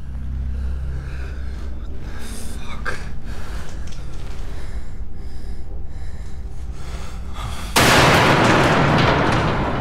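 Film sound design: a low drone that slowly swells, then a sudden loud burst of rushing noise about eight seconds in.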